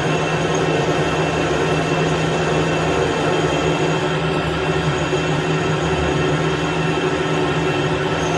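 Metal lathe running under power while the tool takes a cut along a steel shaft: a steady mechanical drone of motor and gearing with a constant low hum.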